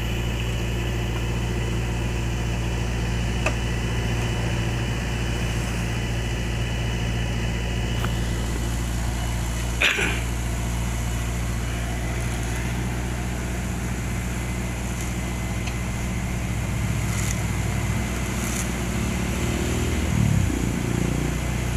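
Heavy diesel engines of an asphalt paver and a dump truck running steadily at work. A single short, sharp knock comes about ten seconds in, and the engine sound swells briefly near the end.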